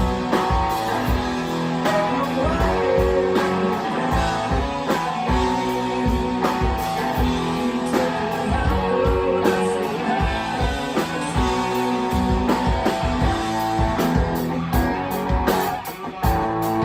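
Live rock band playing a blues-rock song, guitar to the fore over bass and drums, with a short drop in level near the end.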